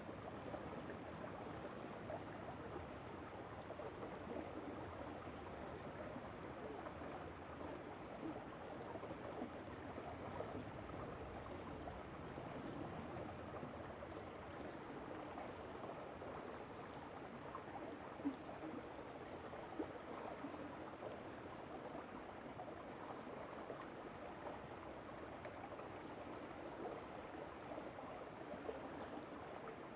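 Small river running steadily over stones, an even rushing babble of water. Two brief, sharper sounds stand out a little past halfway.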